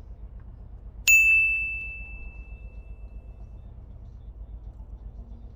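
A single clear, bell-like ding about a second in, sharp at the strike and ringing out over about two seconds. A low, steady rumble runs underneath.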